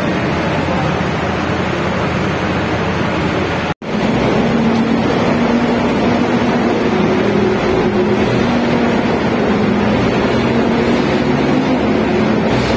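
Shotcrete spraying machine running, a loud, steady mechanical drone with a hiss and a faint low hum. The sound cuts out for an instant just before four seconds in.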